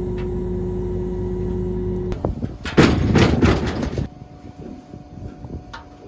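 Combine engine running steadily. About two seconds in it gives way to a loud metal clatter lasting about a second, typical of the folding corn head being moved, and then a quieter steady hum with a few light knocks.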